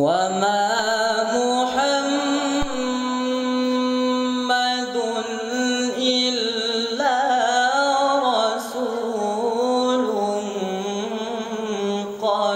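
A teenage male qari's voice reciting the Quran in melodic tilawah style into a microphone, entering abruptly and holding long notes with wavering, gliding ornaments. It is an adolescent voice after its change, which the uploader describes as improving but not yet perfect.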